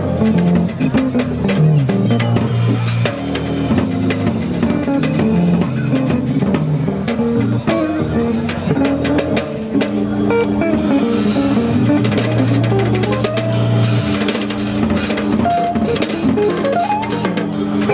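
Live band music: a drum kit played with sticks, with steady beats and cymbal hits, and a bass line and guitar playing along.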